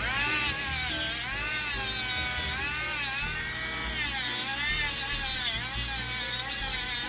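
Cordless rotary tool spinning a radial bristle wheel against soldered wire, a high whine that dips and recovers in pitch as it is pressed on and eased off. The wheel is burnishing the solder to a shine.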